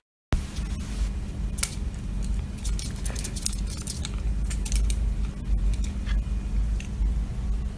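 A kitten suckling at a small feeding bottle: a scatter of sharp little wet clicks over a steady low hum.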